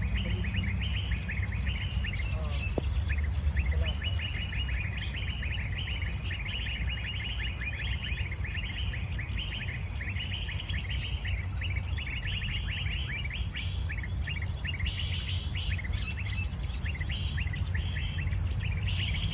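A bird chattering nonstop in fast, densely packed chirps, over a steady low rumble.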